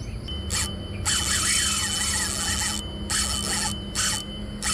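Baitcasting reel's drag buzzing in repeated bursts, from a quarter second to over a second long, as a large hooked fish runs and pulls line off the spool.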